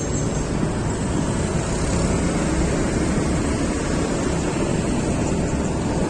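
Steady wind rushing over the microphone of a moving vehicle, with road and engine noise underneath.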